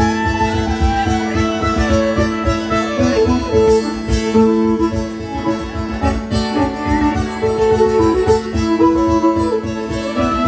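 Mountain dulcimer strummed in a steady rhythm over a constant drone note, with a fiddle bowing the melody alongside.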